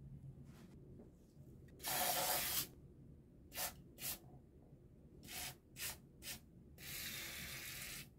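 Aerosol spray can hissing as it sprays the disassembled steel parts of a pen gun. There is a long burst about two seconds in, then five short puffs, then another long burst near the end.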